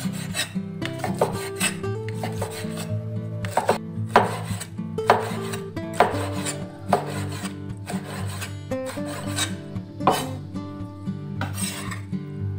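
Cleaver chopping squid on a wooden cutting board: irregular knife strikes and scrapes against the wood, over background music.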